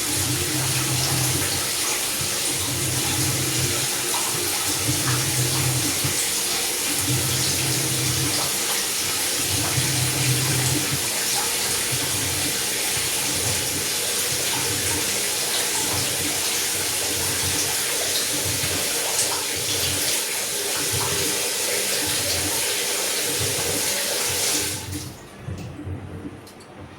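Water rushing into the tub of a Samsung top-load washing machine as it fills, with a low hum pulsing on and off about every second and a half; the water stops suddenly near the end.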